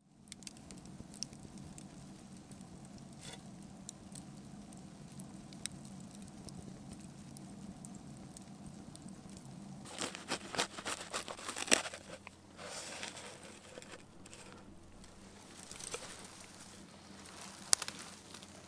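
Faint scattered ticks and crackles from campfire embers over a low steady hum. About ten seconds in, a crusty baked bread is cut open with a knife, giving a burst of loud scratchy crunching of the crust, followed by lighter rasping.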